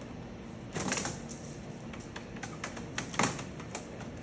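Plastic clicks and knocks as an activated-carbon filter is pushed into a Mitsubishi MJ-EHV250JT-TW dehumidifier's filter bay and snapped into place. There is a short clatter about a second in, then a run of separate sharp clicks in the second half, the loudest about three seconds in.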